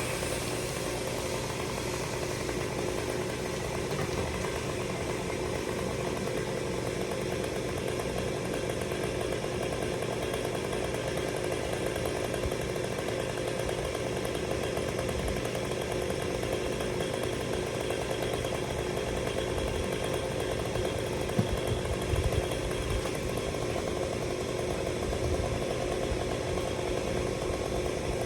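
Gas chainsaw engine running at a steady speed, with a few brief thumps about three-quarters of the way through.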